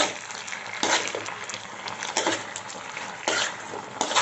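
Steel spoon stirring and scraping chilli paneer in a pan, a stroke about every second, over the low sizzle of the simmering, thickened gravy.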